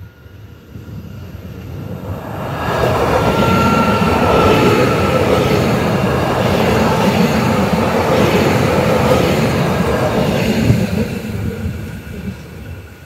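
Zentralbahn Stadler Spatz electric multiple unit passing over a level crossing: it builds up as it approaches, runs past close by for about eight seconds, then fades away near the end.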